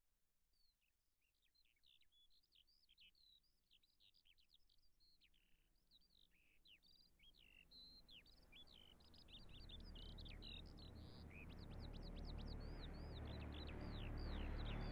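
Recorded birdsong at the faint opening of a rock song: many quick high chirps and down-sweeping calls. A low rumble swells in from about nine seconds and grows louder.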